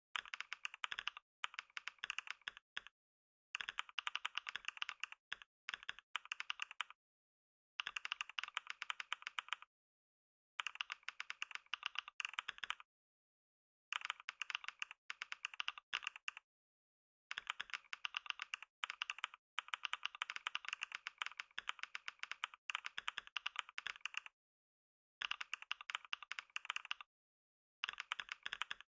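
Fast typing on a computer keyboard: a rapid clatter of keystrokes in runs of a few seconds, broken by brief pauses.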